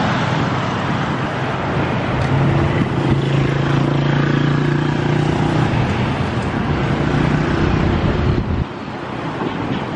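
Road traffic on a busy city street: cars and motorcycles passing. A steady low hum joins about two seconds in and cuts off suddenly near the end.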